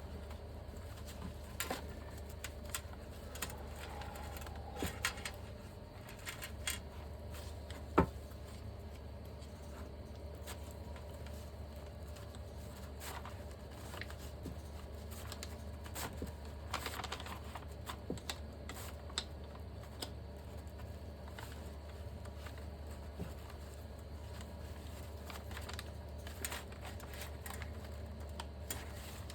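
Scattered small metal clicks and scrapes of a socket and Allen key twisting a tight brake caliper piston down into its bore, with one sharper click about eight seconds in, over a steady low hum.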